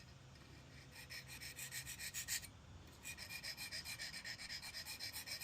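Auto-glass cold knife blade stroked quickly back and forth on a diamond sharpener, a rhythmic metal-on-diamond scraping at about four strokes a second. There are two runs of strokes with a short pause between them.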